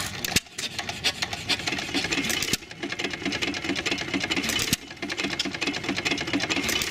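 Antique single-cylinder stationary gas engines with open flywheels running, making a fast, even mechanical clatter of clicks and knocks.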